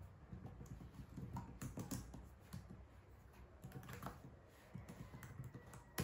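Quiet typing on an HP ProBook laptop keyboard: quick runs of key clicks, easing briefly around the middle before picking up again.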